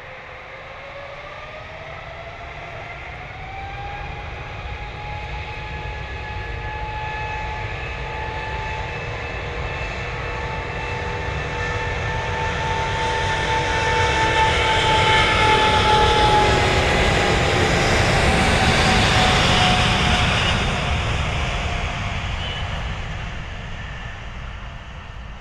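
Jet airliner's engines: a whine that rises in pitch over the first few seconds, then a roar that builds as the plane passes close, loudest roughly two-thirds of the way through, and fades away near the end.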